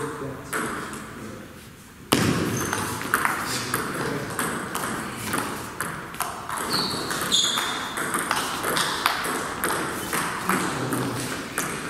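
Table tennis rally: a celluloid ball clicking sharply, again and again, off the players' rubber-covered bats and the table, as a short-pips penhold attacker plays against a chopper. The clicks grow louder and denser from about two seconds in, with a few short high squeaks in the middle.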